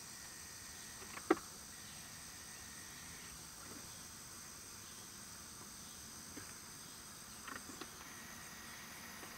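Steady, high-pitched insect chorus in a summer field, several insects trilling at once without a break. A sharp click sounds about a second in, and a few soft ticks come near the end.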